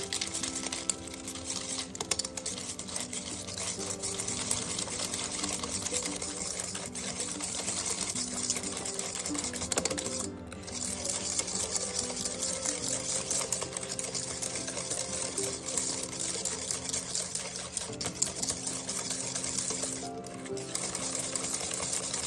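Wire whisk beating egg yolks and sugar in a plastic bowl: a fast, continuous clicking and rattling, with short breaks about halfway through and near the end. Background music plays underneath.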